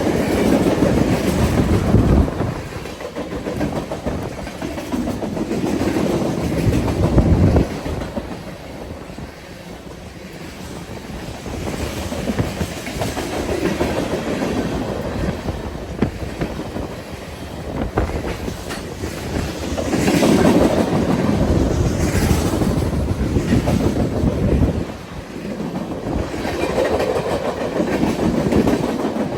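BNSF freight train rolling past: the cars' steel wheels clack over the rail joints, and the rumble swells and dips as the cars go by.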